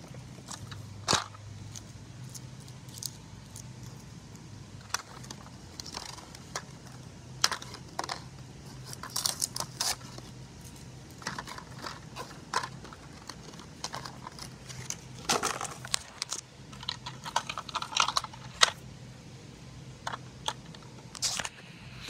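Cardboard toy box and packaging handled as a toy truck is worked out of it: scattered clicks, scrapes and crinkling, with louder bursts of rustling about nine seconds in and again from about fifteen to nineteen seconds.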